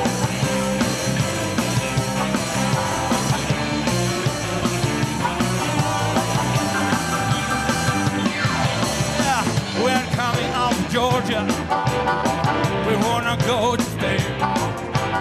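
Electric blues band playing live: drums, electric guitar, bass guitar and keyboard. A melody line bends and wavers in pitch through the second half.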